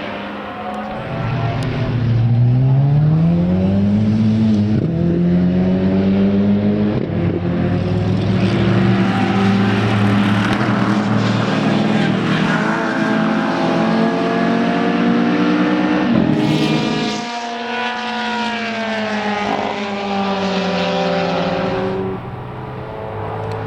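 Racing car engine at high revs on track. The pitch climbs from about two seconds in and holds high for a long stretch, cuts off sharply about seventeen seconds in as the throttle is lifted, then rises and falls again near the end.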